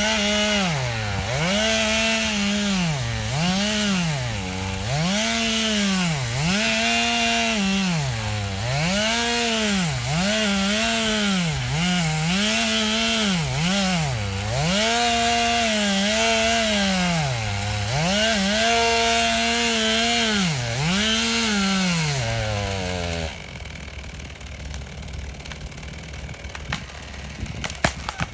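Two-stroke chainsaw running at high revs, its pitch dipping briefly and climbing back every second or two, until it cuts off about 23 seconds in. A few faint clicks follow.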